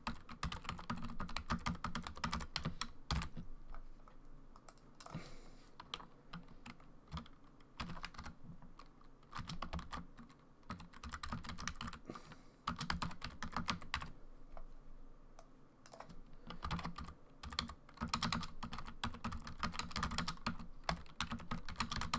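Typing on a computer keyboard: rapid key clicks in runs, with short pauses between the runs.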